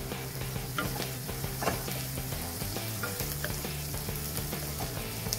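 Diced onion and carrot sizzling in hot oil in a kadhai while being stirred with a wooden spatula, which scrapes against the pan a couple of times.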